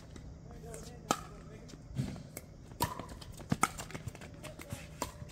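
Pickleball rally: paddles striking the plastic ball in a string of sharp pops about a second apart, with shoes scuffing on the hard court.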